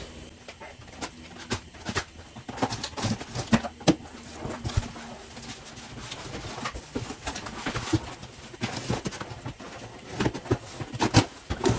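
Scattered clicks, knocks and rustles of packaging and parts being handled as a box of coilovers is opened.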